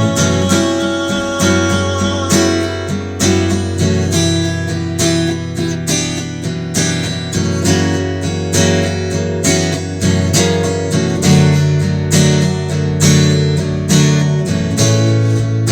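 Acoustic guitar strummed in a steady rhythm, chords changing every few seconds, with no voice: an instrumental passage of the song.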